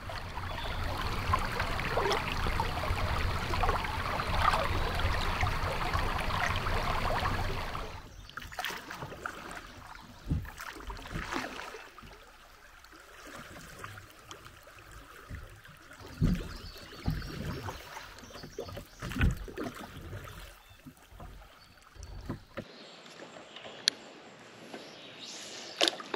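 Steady rush of river current over a shallow riffle for about the first eight seconds, then quieter, with a few scattered knocks and thumps and a couple of sharp clicks near the end.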